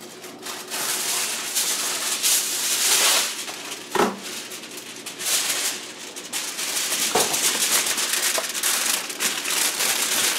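Sheet of aluminium kitchen foil rustling and crinkling as it is handled and pressed down around the rim of a glass baking dish, with a single knock about four seconds in.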